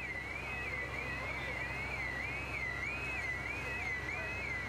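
Emergency vehicle siren sounding a fast, repeating up-and-down yelp, about two cycles a second, over a low steady rumble.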